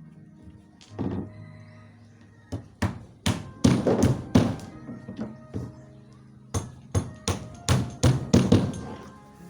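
Hammer blows on wood, a quick run of sharp strikes about three a second, with a short pause around the middle.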